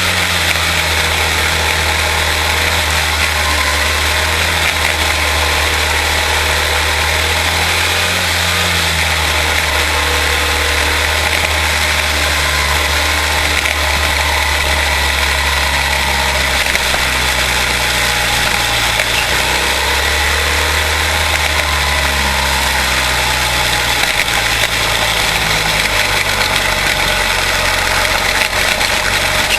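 Quarter-midget race cars' single-cylinder Briggs & Stratton Animal engines running at a fairly steady pitch, their low note shifting slowly without sharp revving.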